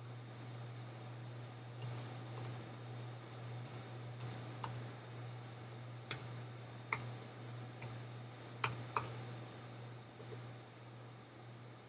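Computer keyboard keys pressed one at a time, about a dozen slow, unevenly spaced clicks, over a steady low hum.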